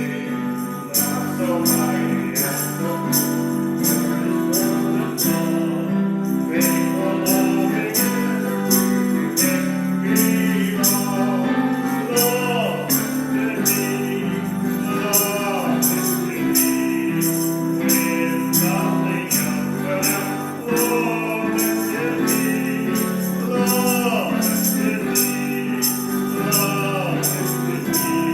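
Congregation singing a hymn with instrumental accompaniment, a tambourine jingling a steady beat about twice a second.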